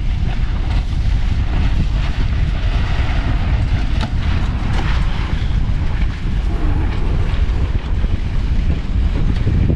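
Wind buffeting the microphone in a steady low rumble, over the hiss and splash of choppy lake water.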